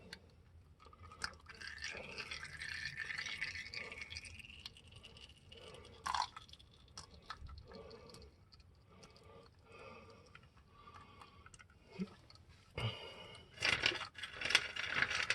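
Engine oil trickling from the Durango's oil pan into a nearly full drain pan, a faint pouring sound whose pitch rises over the first few seconds. Scattered light clicks, then louder clattering handling noise near the end.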